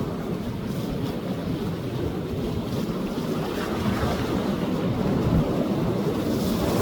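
Sea waves surging onto a beach, a steady rushing wash with wind buffeting the microphone, building slightly toward the end.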